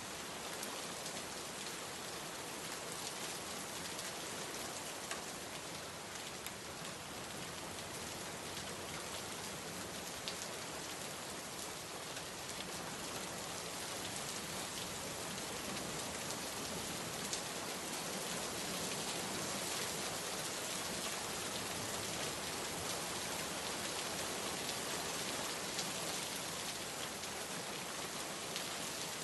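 Steady rain falling: an even hiss with scattered single drop ticks, growing slightly louder past the middle.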